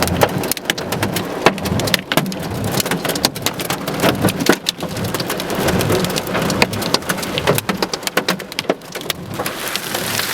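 Giant hailstones, some bigger than golf balls, pelting down with heavy rain: a dense, irregular clatter of hard impacts over a steady hiss, very loud.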